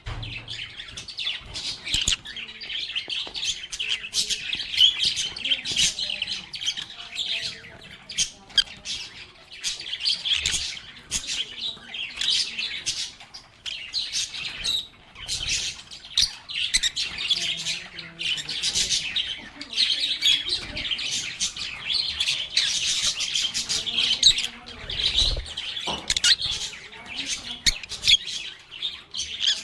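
A group of lovebirds chattering nonstop, with many short high-pitched calls overlapping throughout.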